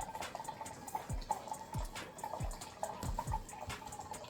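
Water trickling from an alkaline water filter's spout into a cup, with irregular drips and splashes as the cup fills.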